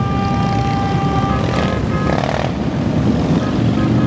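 A procession of large touring and cruiser motorcycles rumbling past at low speed. Near the start, a horn sounds for about a second and a half over the engines.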